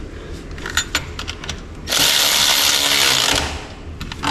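A few light metallic clicks and clinks, then a power tool runs in one loud burst of about a second and a half and winds down.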